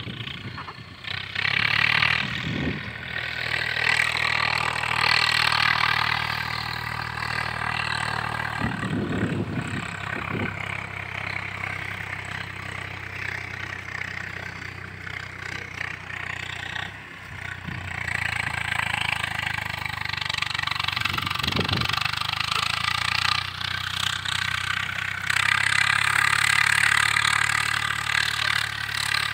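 A steady low engine hum, with a hiss that swells and fades over it.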